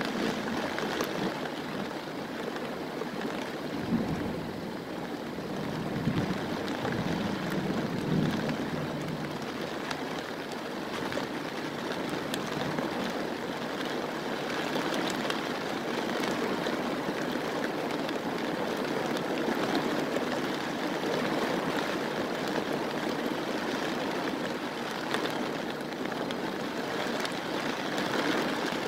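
Heavy rain pouring steadily in a thunderstorm, with low rumbles of thunder about four, six and eight seconds in.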